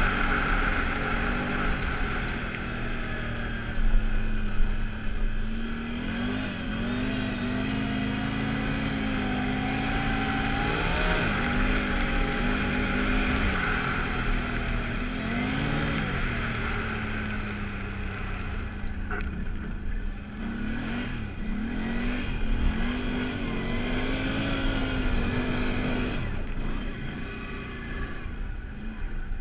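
Can-Am ATV engine running under throttle as it is ridden, its revs rising and falling again and again, with wind buffeting the helmet-mounted microphone.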